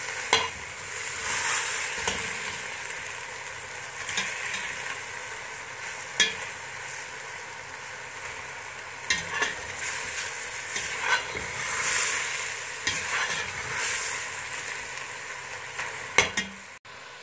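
Chicken pieces sizzling in oil in a stainless steel pot as they are stirred with a metal spoon, the spoon scraping and clinking against the pot every few seconds.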